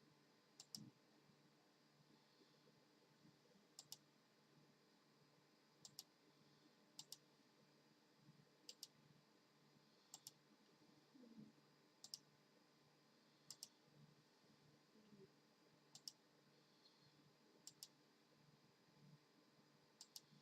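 Faint clicks, each a quick double tick, repeating irregularly every one to two and a half seconds over a quiet room background.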